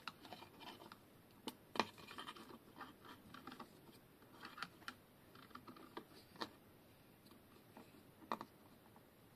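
Faint handling clicks and scrapes of a plastic syringe as its plunger is drawn back to fill it with oil from a plastic jug, with a sharper click about two seconds in and another near the end.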